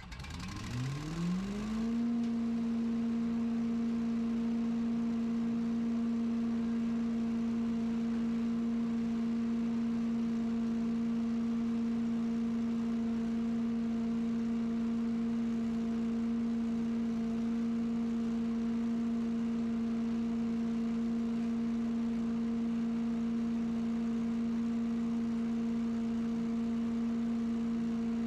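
Leaf blower spinning up, its pitch rising over about two seconds, then running at a steady speed.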